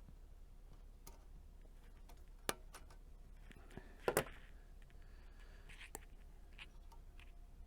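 A few sharp clicks and small knocks from hand tools and parts being handled on a radio chassis. The loudest is a quick double click about four seconds in, over a faint low steady hum.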